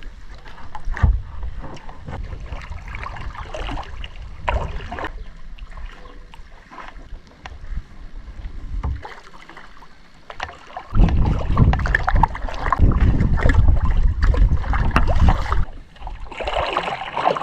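Kayak paddle strokes dipping and splashing in the water, with wind buffeting the microphone in a loud low rumble for several seconds in the second half.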